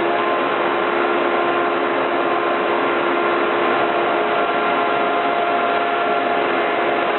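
CNC router with a 1/4-inch bit milling MDF: the spindle runs steadily, a constant whine of steady tones over the cutting noise.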